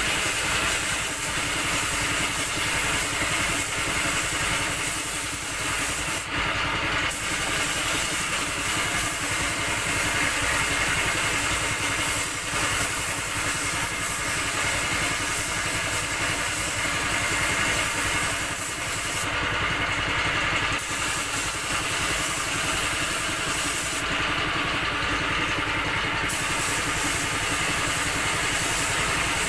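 Spray gun hissing steadily as paint is sprayed, over a steadily running air compressor; the gun's hiss stops briefly three times while the compressor keeps running.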